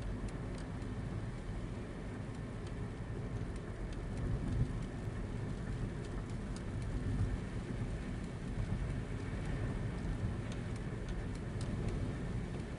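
Rain on a car's windshield and roof, scattered drops ticking sharply, over the steady low rumble of the car driving on a wet road, heard from inside the cabin.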